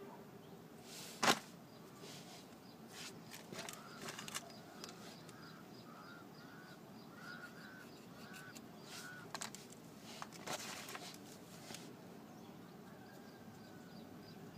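Light grinding from a 1985 Toyota Corolla's brakes under light braking: a short rasp repeating about twice a second, with a few sharp clicks, one loud about a second in. The owner traces the noise to the pad backing plates rubbing against the brake shims.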